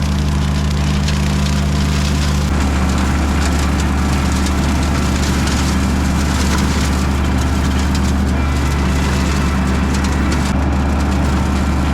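John Deere 2320 compact tractor's diesel engine running steadily while driving a brush hog; its note changes about two and a half seconds in, as the load on the cutter shifts.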